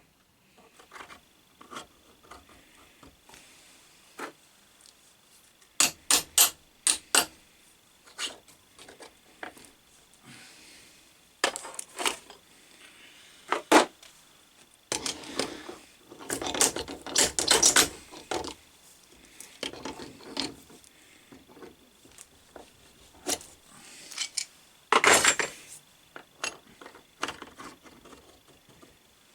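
Metal parts of a lathe fixed steady being worked by hand: scattered clinks and knocks, a quick run of sharp clicks about six seconds in, and scraping rubs around sixteen to eighteen seconds and again near twenty-five seconds as the steel fingers are slid and adjusted.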